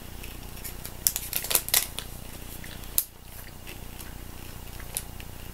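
Plastic sweet wrapper crinkling in the hands, with a cluster of sharp crackles about a second in and a single louder crackle near three seconds.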